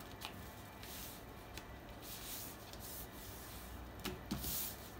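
A sheet of chart paper being folded and creased flat by hand, rubbing faintly on the tabletop, with a few soft swishes of paper, the loudest near the end.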